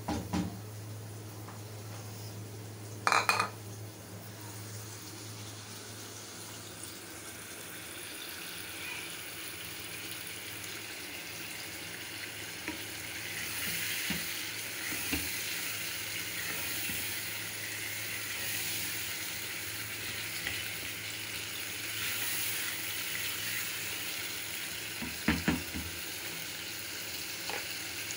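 Chicken pieces and green chillies frying in a pan, sizzling while being stirred; the sizzle grows louder about halfway through. A few sharp knocks of a utensil against the pan, the loudest a few seconds in, and a steady low hum underneath.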